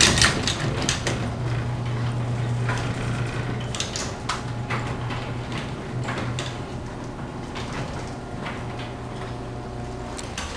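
LiftMaster 3280 garage door opener closing the door: the motor hums steadily while the trolley and door run down the rail with a light rattle, after a crunch as it starts. The motor unit has been lowered to spec to cut the trolley rattle, leaving just one crunch.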